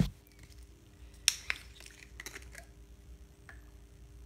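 Sharp plastic clicks and cracks as the cap of an oil flush additive bottle is forced open by hand. The two loudest snaps come about a second and a half in, with a few smaller clicks after.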